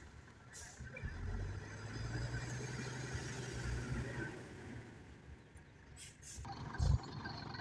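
A heavy machine's engine running steadily, then fading after a few seconds, with a single low thump near the end.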